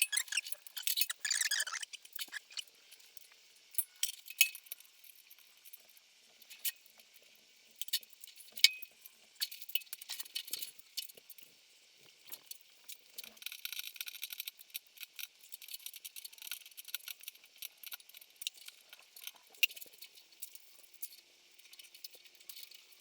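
Metal hydraulic hose fittings clinking and clicking as they are handled and coupled up, in sharp irregular clicks with one louder snap about a third of the way in. A faint steady hum sets in near the end.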